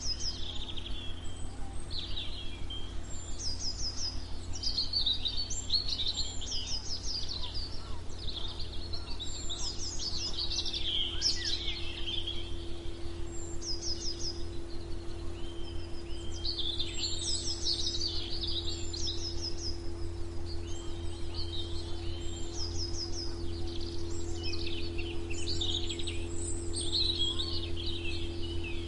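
Songbirds chirping and trilling over and over in short, quick series, over a steady low background noise with a faint constant hum.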